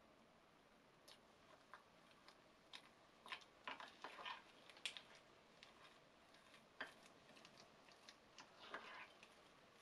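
Metal spoon clinking and scraping against a glass bowl while stirring cottage cheese into a thick paste. Faint, irregular clicks and scrapes, busiest around the middle.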